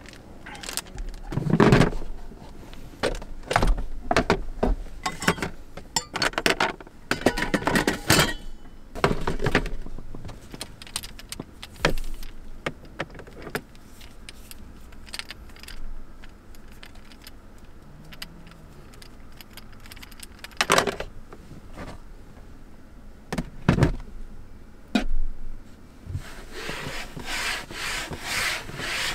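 Objects being handled: scattered clicks, knocks and rustles, then near the end a run of quick, even rubbing strokes.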